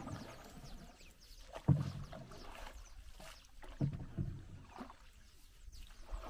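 A wooden canoe being paddled: a stroke about every two seconds, each a low knock and splash of the paddle in the water.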